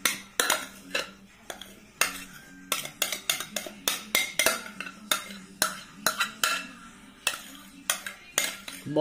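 Metal spoon scraping whipped cream out of a tilted bowl into a bowl of cheesecake mixture, knocking and clinking against the bowl's side and rim in a string of sharp clicks, roughly two a second.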